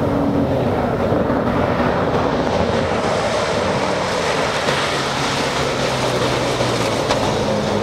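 Toyota Land Cruiser Prado rally car driving hard on a dusty dirt track: its engine running at speed under a steady rush of tyre and wind noise.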